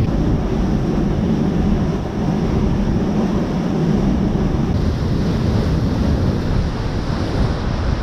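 Waterfall whitewater rushing over rock close by: a loud, steady, dense rush, heaviest in the low range.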